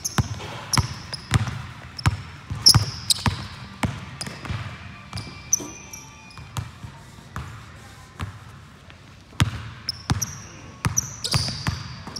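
A basketball being dribbled and bounced on a hardwood gym floor: a series of thuds, about two a second at first, sparser in the middle and quick again near the end. Short high sneaker squeaks on the hardwood come between the bounces.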